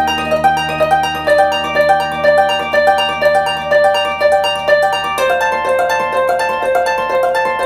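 Background music: plucked, harp-like notes in a steady repeating pattern of about four notes a second over a held low chord, moving to a new chord about five seconds in, then cutting off suddenly.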